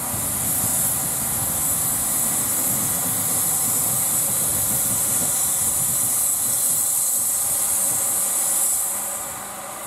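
Small steam tank locomotive blowing off steam: a loud, steady hiss that stops about nine seconds in.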